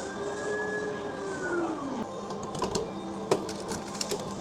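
Vending machine dispensing: a motor whine rises and falls back over about two seconds over a steady low hum, followed by a series of sharp clicks and knocks in the second half.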